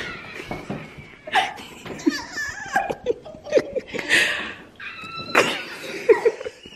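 Women laughing excitedly, with a high-pitched squeal about five seconds in.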